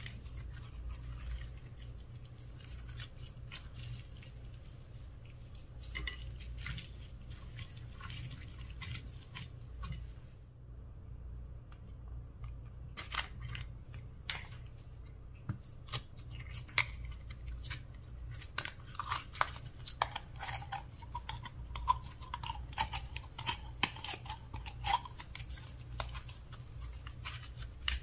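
Slime being squished and worked by hand, giving a quick run of small sticky clicks, pops and crackles. The clicks get busier and sharper in the second half.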